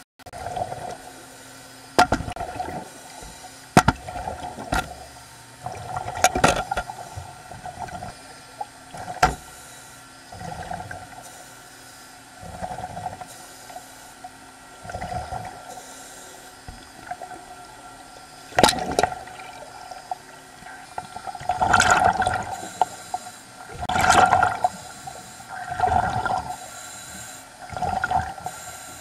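A diver breathing underwater through a regulator: a hissing inhale, then a rush of exhaust bubbles, repeating every couple of seconds and loudest in the last third.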